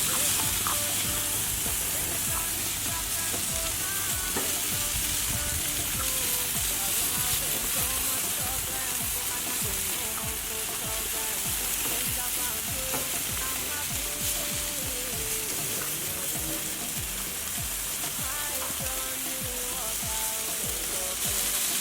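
Barbecue-sauced chicken sizzling steadily on a barbecue grill.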